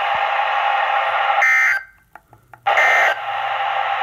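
Emergency Alert System end-of-message: short, harsh buzzing digital data bursts repeated about a second apart over a steady radio hiss, with a brief drop to near silence between the first two bursts. The bursts signal the end of the alert.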